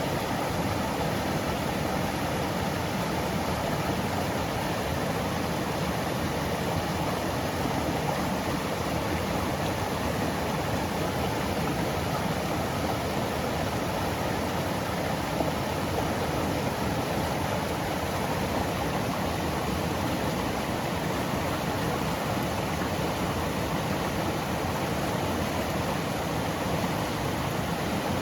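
Mountain stream flowing over rocks and pebbles: a steady, even rush of water with no change throughout.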